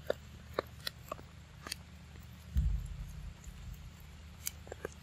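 Macaque biting and chewing a green-skinned fruit: sparse, irregular crisp clicks, with one low thump about two and a half seconds in.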